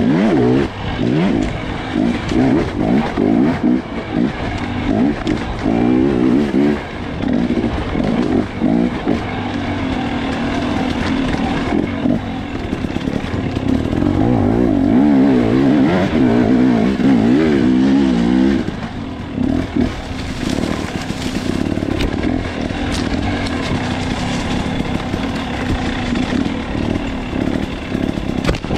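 Off-road motorcycle engine heard close up from the rider's helmet, revving up and down again and again as the throttle is worked on a woods trail. About halfway through it holds high revs for several seconds, then drops off sharply.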